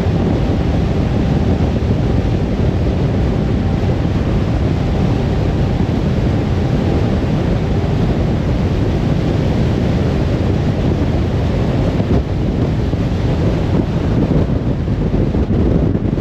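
Car driving at speed on a motorway: steady rumble of tyres on the road and wind noise, with a faint hum that fades about halfway through.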